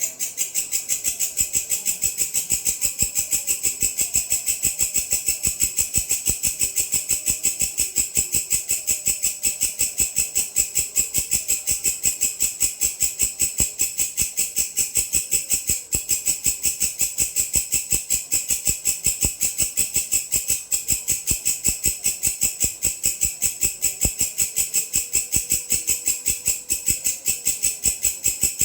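A grasshopper calling: a loud, steady, high-pitched chirring made of rapid, even pulses, starting abruptly after a pause.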